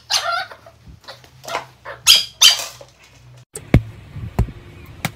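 Short calls from a small pet, about six in quick succession, then three sharp taps near the end.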